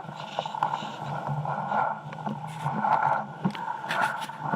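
Jet ski engine running steadily, with scattered knocks and scrapes.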